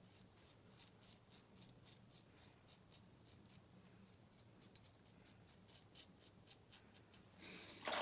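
Faint, quick scraping strokes of a razor cutting through lathered stubble, several a second, on a second pass across the grain. Running water starts near the end.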